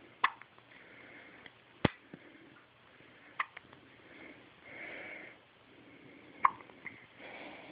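Newborn baby hiccupping: four short, sharp hics at uneven gaps of one and a half to three seconds.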